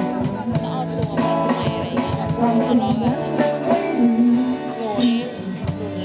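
Live music from a two-piece band playing drums and hand percussion under a sustained pitched melody line that bends in pitch.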